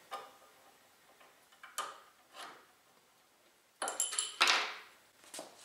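Small metal parts and hand tools handled on a wooden workbench: a few light scattered clicks, then a louder cluster of sharp metallic clinks with a brief ring about four seconds in, as a steel sight pin is set into a rifle front sight base with a magnetic pickup tool and the tool is put down.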